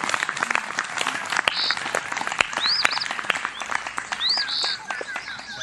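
Dense scattered clicks, like clapping or crackling, with bird-like whistled calls: calls that arch up and down about two and a half and four seconds in, and a run of short falling chirps toward the end.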